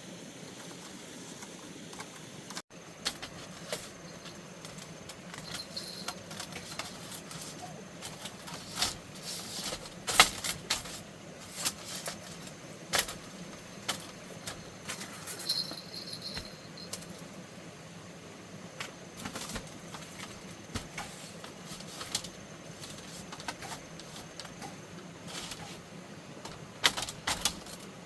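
Irregular sharp knocks and clatter of bamboo being cut and handled, with scattered hits; the loudest comes about ten seconds in.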